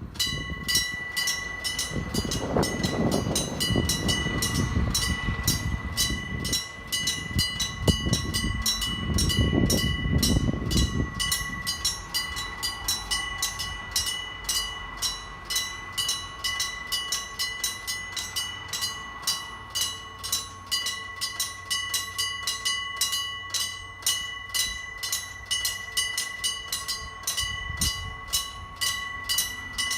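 Electric striking bells of an old-style Japanese railway level crossing start up suddenly and ring on with rapid metallic strokes, the crossing's two bells striking at clearly different speeds so that they fall out of step. A low rumble of passing traffic rises and fades twice in the first ten seconds or so.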